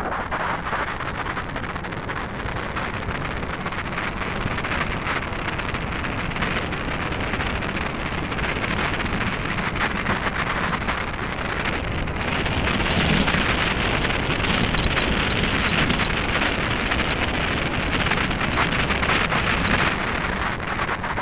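Mountain bike ride on a gravel dirt track: wind rushing over the action camera's microphone mixed with the tyres rolling and crunching over the gravel, steady at first and growing louder about halfway through, with a few sharp clicks.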